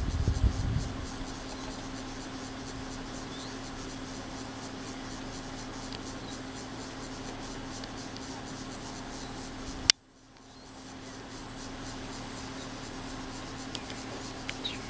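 Steady low hum with faint hiss. A louder rustling sound dies away in the first second, and a single sharp click about ten seconds in is followed by a brief dropout that fades back in.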